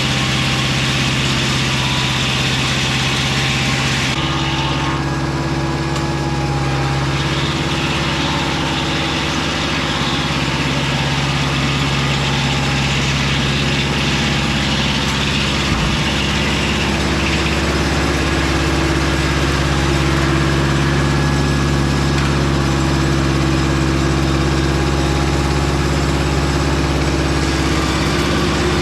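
Engine of a Mobile Dimension circular-blade sawmill running steadily.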